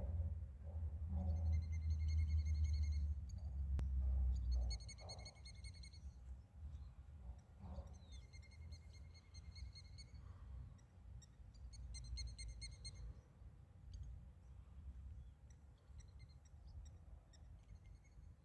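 Wind buffeting the microphone, a loud low rumble for the first five seconds or so that then eases to a lighter gusting. Over it a songbird gives short, high trilled phrases, four or five times.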